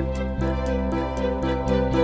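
Background music: soft instrumental chords held and changing every half second or so, with a light tick about four times a second.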